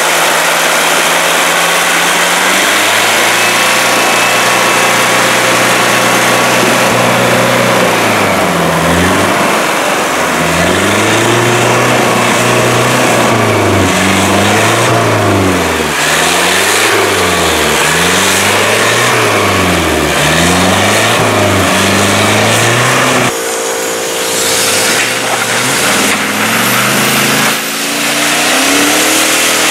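Suzuki SJ off-roader's engine running steadily, then revved up and down over and over, rising and falling about once every two seconds, over a constant hiss. Partway through it drops to a steadier note that climbs again near the end.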